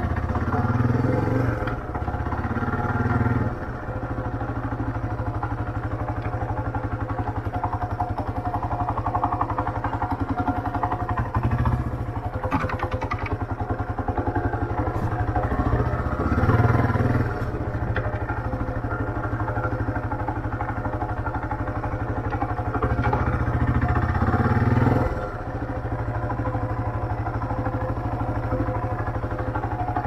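Motorcycle engine running at low speed, swelling louder several times as the throttle is opened.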